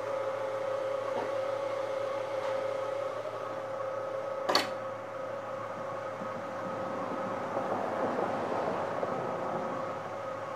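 Steady mechanical hum, with one sharp knock about four and a half seconds in.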